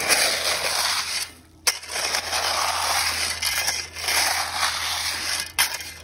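Loose crushed stone crunching and shifting under boots and a shovel, in long scraping stretches with a short break just over a second in. A low steady hum runs underneath.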